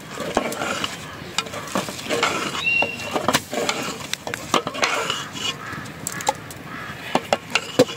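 A long ladle stirring a pot of green soup over a wood fire, scraping and clinking against the pot, with scattered sharp clicks throughout.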